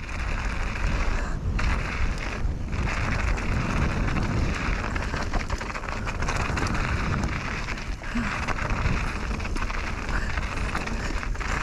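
Mountain bike riding fast down a rough dirt downhill trail, heard as heavy wind rush on an action-camera microphone mixed with tyre rumble and rattle. The noise dips briefly twice near the start.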